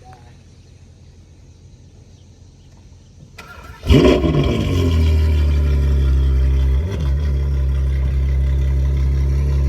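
Ferrari 812 GTS's 6.5-litre V12 with a Novitec straight-pipe exhaust starting up. The starter turns briefly about three and a half seconds in, then the engine catches with a loud rev flare that falls back and settles into a steady, deep idle.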